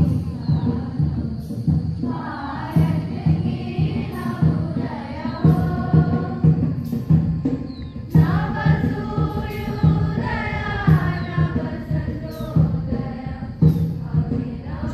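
A group of voices singing together in chorus over a steady drum beat of about two strokes a second, the singing growing stronger about eight seconds in.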